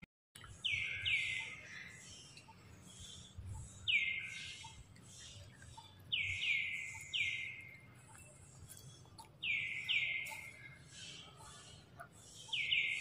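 High, sliding calls, each falling in pitch, coming in pairs and threes every few seconds, over a low background rumble.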